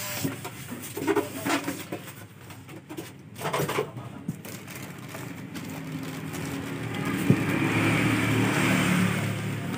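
Packing being handled: short scrapes and squeaks as a styrofoam block is pulled out of a cardboard box, then plastic-bag rustling as a wrapped key-cutting machine is lifted out. A low rumble builds in the second half and is the loudest part.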